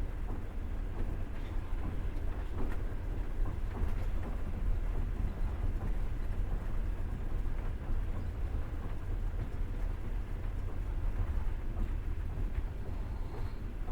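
Passenger train carriage running along the track: a steady low rumble with rolling noise and scattered faint clicks and rattles.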